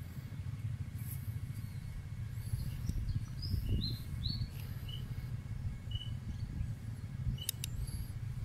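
A few short, high bird chirps scattered through the middle, over a steady low rumble, with a couple of sharp clicks near the end.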